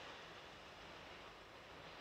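Near silence: a faint, steady hiss of background noise.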